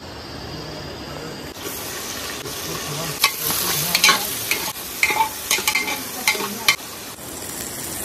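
Ingredients sizzling as they fry in hot oil in an aluminium cooking pot, the sizzle brightening about a second and a half in. A metal utensil clanks against the pot several times during stirring.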